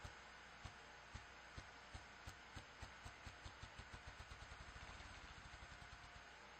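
Ruffed grouse drumming: deep, muffled wingbeat thumps, about half a second apart at first, speeding up into a rapid whirring roll that dies away near the end.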